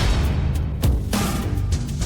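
Dramatic soundtrack music with heavy drum hits, starting on the peak of a rising swell.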